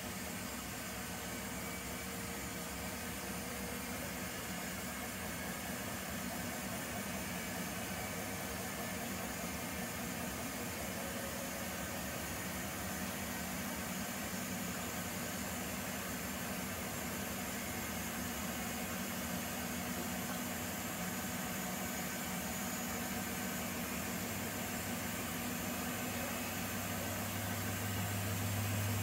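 Primus P6 commercial washing machine running its wash cycle: a steady motor hum with the noise of the drum and water. Near the end a deeper hum grows louder.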